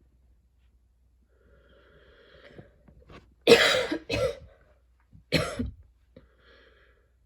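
A woman coughing: a faint breath in, then two hard coughs close together about three and a half seconds in and a third about five seconds in, followed by another faint breath. It is a lingering cough with throat tickles and heavy breathing.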